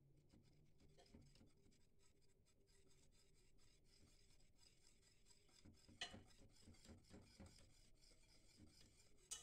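Faint scraping and clicking of a wire whisk against a stainless steel saucepan as it stirs melting chocolate, with a run of louder strokes about six seconds in.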